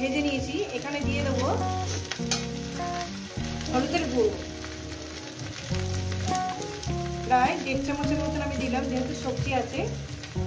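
Vegetables frying and sizzling in oil in a steel kadai, with a metal spatula stirring in the pan. Background instrumental music with held notes that change in steps plays over it.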